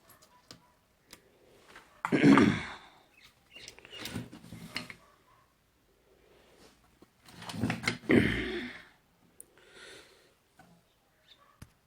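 Workbench desoldering and handling noises as a transistor is removed from a charger's circuit board: scattered small clicks, with two louder rushing bursts of about a second each, about two and eight seconds in.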